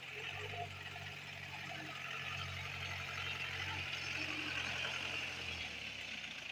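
Mahindra jeep engine running at low speed as the jeep crawls up a dirt track. The low engine hum drops away shortly before the end.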